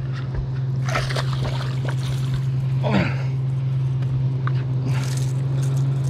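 A steady low electric motor hum from the bass boat, with a few short splashes of water.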